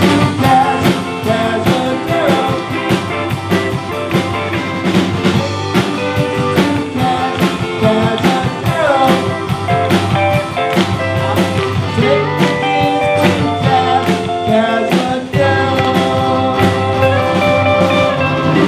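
Live band playing a rock song on stage: a drum kit keeps a steady beat under guitar and fiddles, with a voice singing.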